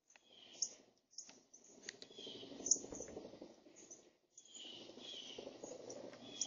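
Female northern cardinal pecking and rummaging through seeds and nuts in a feeder tray right at the microphone: a scratchy crunching with sharp clicks, broken by a short pause about four seconds in, with a few short high chirps.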